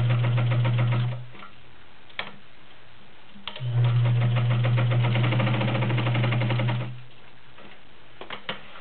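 Vintage all-metal Universal KZB zigzag sewing machine sewing through three layers of denim, its motor humming under rapid needle strokes. It stops about a second in, runs again for about three seconds from the middle, then stops. There are light clicks in the pauses.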